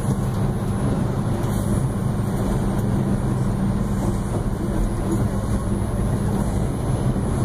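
R142 subway car running at speed through a tunnel, heard from inside the car: a steady rumble of wheels on rail with a low hum underneath.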